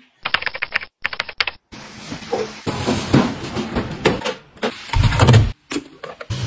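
Quick-cut household handling sounds: two quick runs of small sharp clicks and taps, then clatter and knocks of cartons and plastic bottles being set into a fridge door shelf. About five seconds in there is a brief loud low rumble, and near the end a steady low hum begins.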